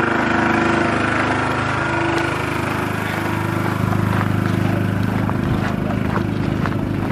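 Diesel engine of the stopped Indian Pacific train idling, a steady low drone that grows a little stronger about halfway through.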